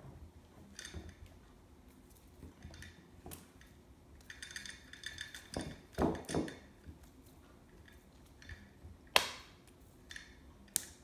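Kitten pouncing and scrambling on a hardwood floor after a toy on a string: scattered scuffs and taps, two soft thuds about six seconds in as it lands and slides, and two sharp clicks near the end.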